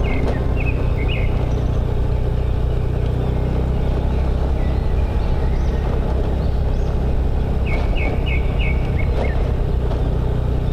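Motorbike engine running steadily under way, with wind and road noise. A bird chirps in quick runs of short notes near the start and again about three-quarters of the way through.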